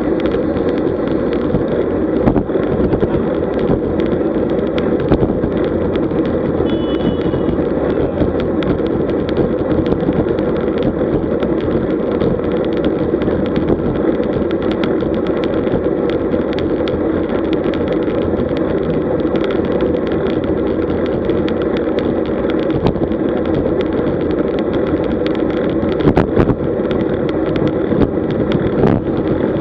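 Steady rushing wind and road noise on the camera microphone of a road bike rolling at speed in a group, with scattered small knocks from the road surface and a louder cluster of them near the end.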